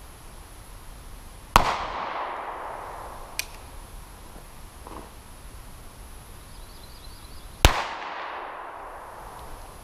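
Two pistol shots about six seconds apart, each a sharp crack that echoes and dies away over about a second. A much fainter sharp crack falls between them.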